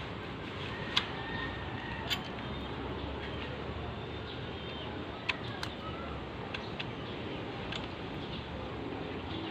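A few sharp metallic clicks and clinks from hand tools and engine parts being handled, one about a second in, another about two seconds in and a close pair past the middle, over steady background noise with faint bird chirps.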